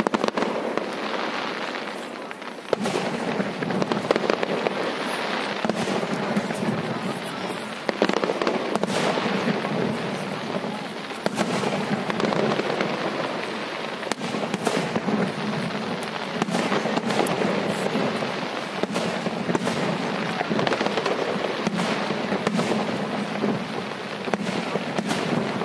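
Fireworks going off without pause: a dense, continuous crackle studded with many sharp bangs, which starts suddenly.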